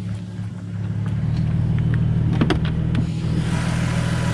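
Toyota Supra's twin-turbo 2JZ-GTE straight-six (non-VVTi) idling smoothly and steadily, growing louder about a second in, with a few light clicks midway.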